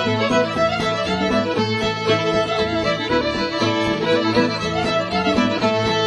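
Old-time string band playing a fiddle tune live, fiddle leading over a steady string backing.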